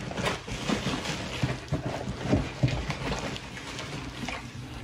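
Foil-lined bubble-wrap packing liner and plastic wrap crinkling and rustling as they are handled, with a run of irregular crackles.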